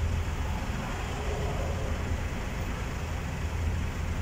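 A vehicle engine idling, a steady low hum under a faint hiss.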